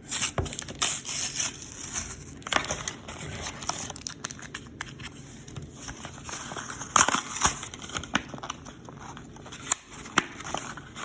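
Crinkling and tearing of Pokémon card blister-pack packaging and foil booster wrappers as the packs are opened, with irregular crackles and clicks throughout, loudest near the start and about seven seconds in.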